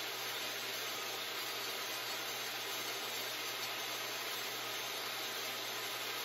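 Portable table saw running steadily while a plywood disc is worked across its blade, trimming small facets off the edge to round it toward a circle.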